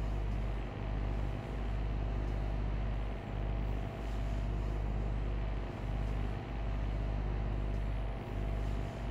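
Deep, steady low hum with short dips that come in pairs about every two and a half seconds.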